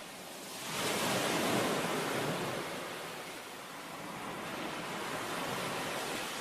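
A rushing noise with no tones or beat, swelling about a second in and then slowly easing off: an intro sound wash ahead of the song.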